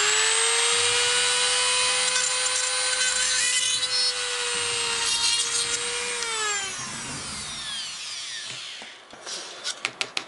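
Handheld rotary tool running at a steady high whine while a small drill bit bores through a resin moulding, with rougher grinding in the middle as the bit cuts; about six seconds in the motor is switched off and winds down. A few light handling clicks follow near the end.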